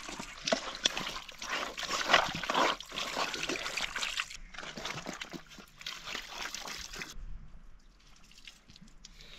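Water from an outdoor spout pouring into a metal colander of raw pork pieces, splashing and sloshing as the meat is rinsed and turned by hand. The sound becomes much quieter about seven seconds in.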